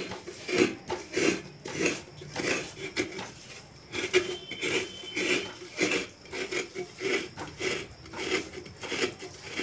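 Repeated hand scraping strokes, about two a second: grating coconut and rubbing ripe palmyra fruit against a woven bamboo basket to work out the pulp.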